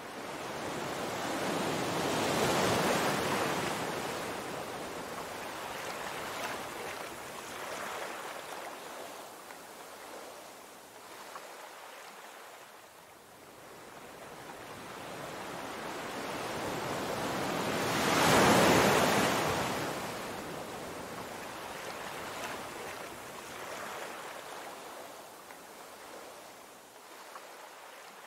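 Ocean surf breaking and washing over rocks, swelling and ebbing. The loudest waves break about three seconds in and again about two-thirds of the way through.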